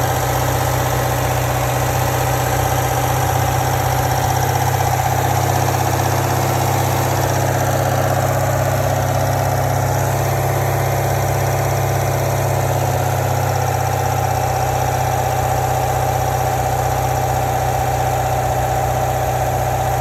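Chevrolet Corvette C7 Grand Sport's 6.2-litre LT1 V8 idling steadily, with a rattle from the engine compartment at low rpm.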